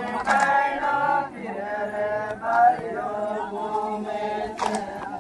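A group of voices singing a garba song in chorus, holding long notes together. Two brief sharp sounds cut through, one just after the start and one near the end.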